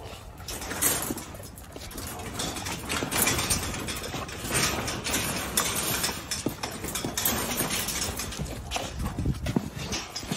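A pack of excited pit bulls jumping and scrambling on concrete: a busy, irregular clatter of claws clicking and scraping, mixed with knocks and rattles as the dogs jump against a wire kennel panel.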